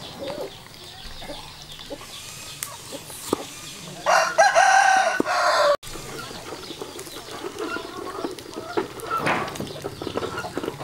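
A rooster crowing once, about a second and a half long, cut off abruptly.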